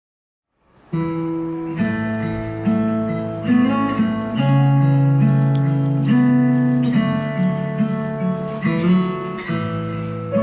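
Instrumental music led by strummed acoustic guitar, starting suddenly about a second in, with sustained chords changing every second or so.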